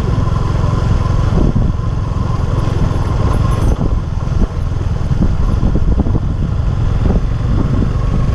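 Suzuki V-Strom SX 250's single-cylinder engine running steadily while the motorcycle is ridden, with a low pulsing engine note.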